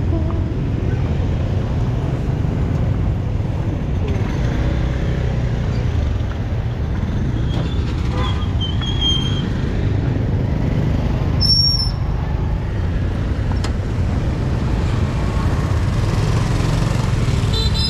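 Street traffic ambience: a steady low rumble of passing motor vehicles, with a brief high-pitched squeal a little before halfway through.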